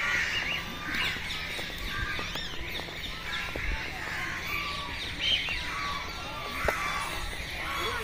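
Birds calling and chirping, many short overlapping calls.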